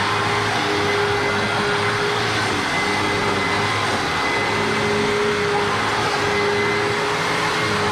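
Hoover WindTunnel self-propelled upright vacuum cleaner running steadily on carpet, a constant rushing noise with a steady whine.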